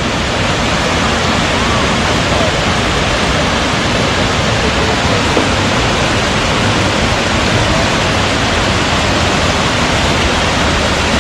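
Waterfall pouring steadily, a loud even rush of water with no breaks.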